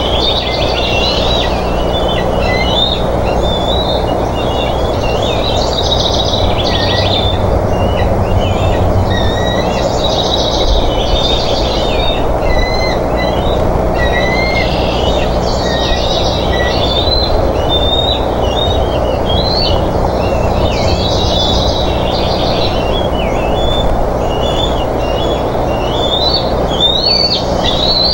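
Birds chirping in short bursts of high, wavering calls about every five seconds, over a steady rushing noise with a low hum.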